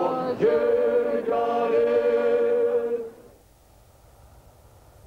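Unaccompanied voices singing long held notes in a chant, a new note starting about half a second in; the singing stops about three seconds in, leaving only a faint low hum.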